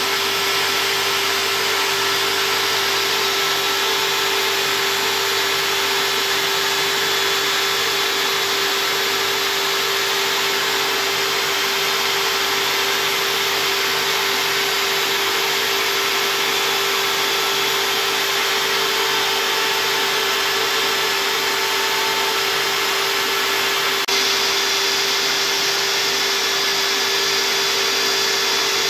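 Homemade CNC router's spindle motor running steadily with one held tone while its bit carves a board, together with the rushing of the dust-extraction vacuum drawing through the hose at the bit. The level steps up slightly near the end.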